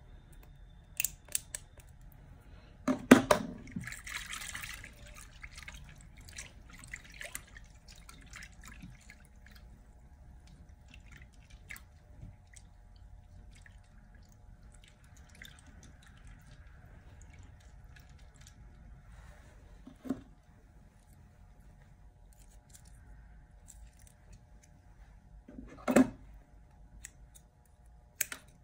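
A loud knock about three seconds in, then a short rush of water poured into a glass bowl of crumbled makeup. After that come faint splashes and small clicks as a hand stirs the water, two more knocks, and scissors clicking in the bowl near the end.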